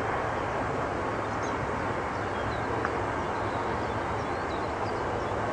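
Steady rushing roar of jet airliner engine noise at an airport, with a few faint high chirps above it.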